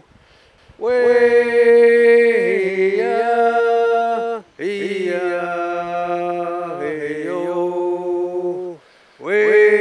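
A man singing an unaccompanied chant in long held notes that step between pitches, in three phrases with short breaks between them.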